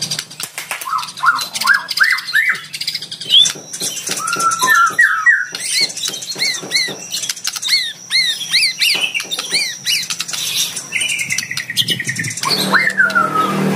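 Male white-rumped shama singing a fast, varied song: rich rising and arched whistles mixed with sharp clicking notes, with a run of the same arched note repeated about twice a second in the middle. This is full-voiced territorial fighting song, the kind used as a lure to provoke rival shamas into singing.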